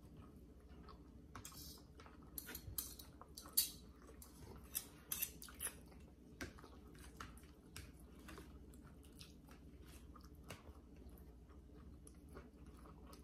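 Faint chewing of a flour-tortilla egg pie, with short clicks of forks and a knife against plates. The clicks bunch together in the first half and thin out toward the end.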